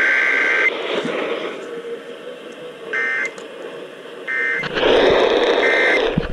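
Emergency Alert System SAME header from an AM broadcast, played through a radio's speaker: harsh, buzzing digital data tones. A long burst ends under a second in, and short bursts follow a few seconds later. Hiss and static run underneath and swell near the end.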